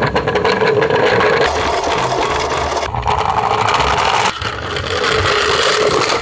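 Toy garbage trucks running on a wooden board: a loud, steady mechanical whirring and rattling of small motors and plastic wheels, changing abruptly twice as one toy gives way to the next, and cutting off suddenly at the end.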